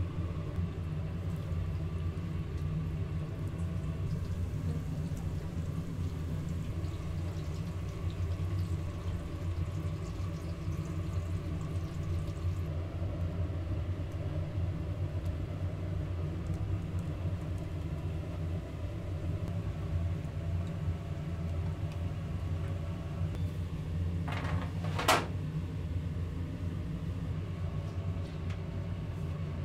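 Steady low mechanical hum of kitchen machinery, such as a ventilation fan or motor, running evenly. A single sharp clink rings out about 25 seconds in.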